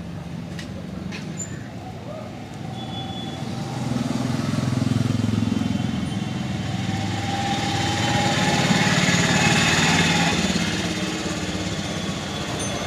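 Street traffic: a motor vehicle's engine passing close by, growing louder about four seconds in and fading near the end.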